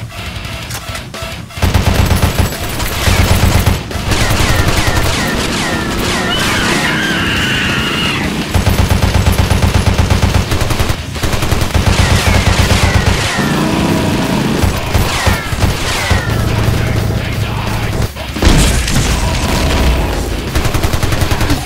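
Rapid automatic gunfire in long bursts, action-film gunshot sound effects. A heavy boom from an explosion comes near the end.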